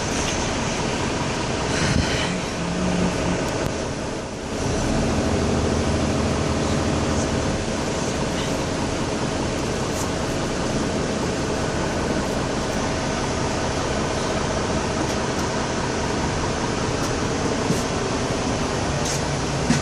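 Steady cabin noise inside a Mercedes-Benz Conecto II city bus: the low hum of the diesel engine under an even rush of ventilation and road noise. It dips briefly about four seconds in, then runs on at an even level.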